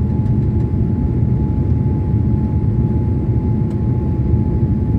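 Steady rumble of engine and airflow noise inside an airliner cabin during descent, with a thin steady whine above it.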